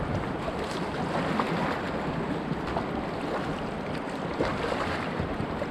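Swift river current rushing and churning around a kayak, with wind buffeting the microphone.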